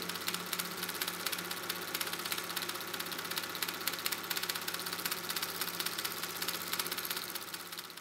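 A steady mechanical hum with a fast, fine rattle, fading out near the end.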